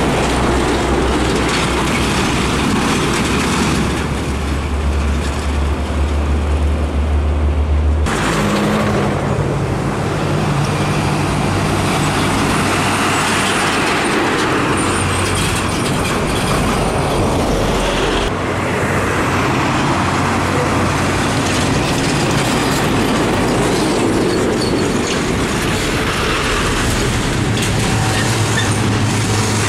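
Heavy diesel trucks, including a container semi-trailer, driving past close by one after another: steady engine drone with tyre and road noise. The sound changes abruptly about a quarter of the way in and again a little past halfway.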